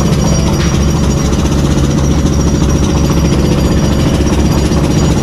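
A running engine makes a steady, rapid mechanical clatter that never breaks.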